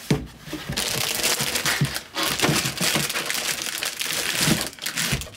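Plastic bag crinkling and rustling against cardboard as bagged shoes are pushed down into a Priority Mail box, with a short pause about two seconds in.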